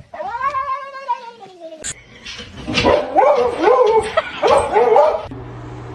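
A pet animal calling: one long call that falls in pitch, then, after a sudden cut, a run of short whining calls that bend up and down.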